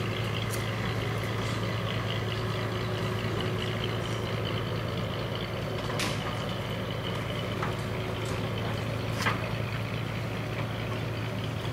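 A steady low mechanical hum, with two sharp knocks about six and nine seconds in.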